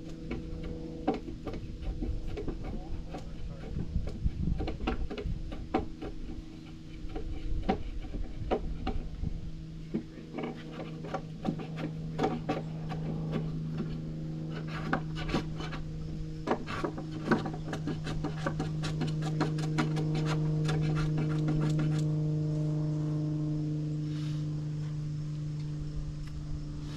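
Many irregular wooden knocks, taps and rubbing sounds over a steady machine hum that swells a little around the middle.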